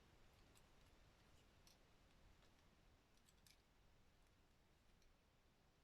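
Near silence with several faint, sharp clicks, a few of them bunched together about three and a half seconds in: the plastic joints of a Transformers Studio Series Dino figure being swivelled by hand during transformation.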